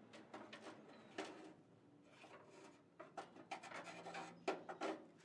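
Faint, irregular scraping and rubbing as a Ford Model TT's steering column is worked up and out of the cab by hand, with a few sharper knocks near the end.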